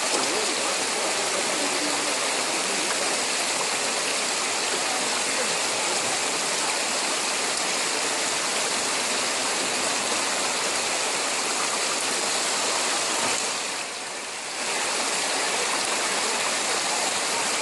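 Steady rushing of a shallow rocky stream flowing over stones, dipping briefly about three-quarters of the way through.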